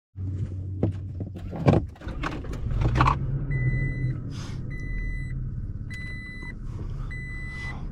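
Low vehicle hum with a few clicks and knocks at first, then a regular electronic beep sounding about once every second and a bit, each beep about half a second long.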